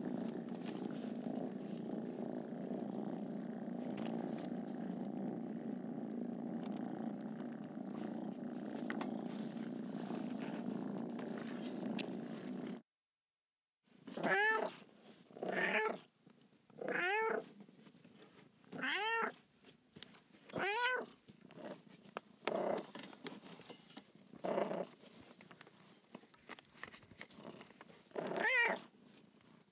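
A cat purring steadily, cut off abruptly after about thirteen seconds. After a short silence, a cat meows about ten times in short calls, one every second or two.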